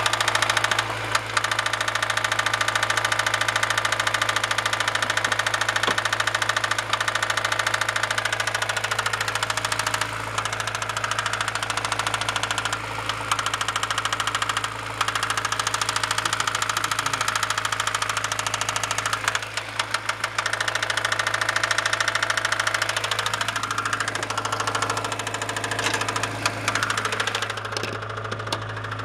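Honda B16A 1.6-litre DOHC VTEC inline-four idling with a steady, evenly repeating knock from the engine. The knock keeps on in neutral, so it is not coming from the clutch or gearbox.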